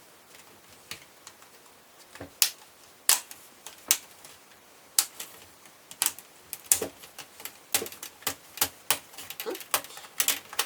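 Plastic clips of a laptop's screen bezel snapping and clicking as the bezel is pried away from the screen, in irregular sharp clicks that come thicker toward the end.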